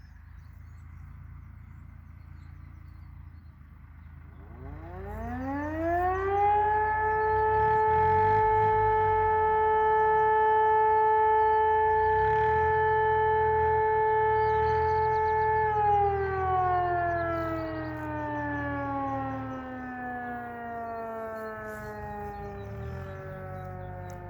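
E57 electromechanical civil-defence siren spinning up about four seconds in, its pitch rising to a loud steady tone held for about nine seconds, then winding down with slowly falling pitch. This is the first blast of the fire-alarm signal (Feueralarm) during a test alarm.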